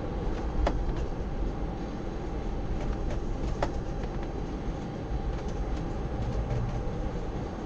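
Steady rumble and rattle inside the upper-deck cabin of a Boeing 747-400 rolling along the runway after landing, with two sharp clicks, one about a second in and another a few seconds later.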